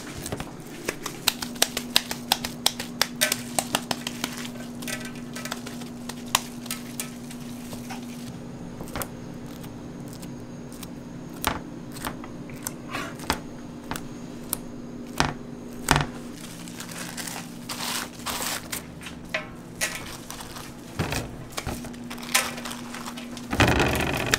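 Crinkling of wrapping sheets and soft pats as gloved hands lay raw hamburger patties out in rows, in many short crackles that come thickest at the start and in a louder burst near the end. A steady low hum runs underneath.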